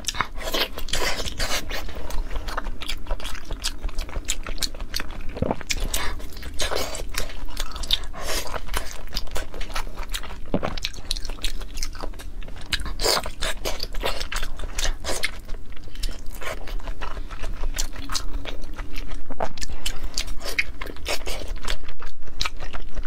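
Chewing and biting of thick slices of raw salmon, a continuous run of quick, sharp mouth clicks.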